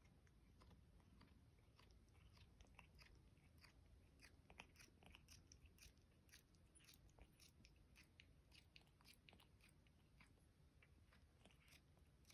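A Persian cat chewing on nothing: faint, irregular mouth clicks and smacks, several a second, from an empty mouth.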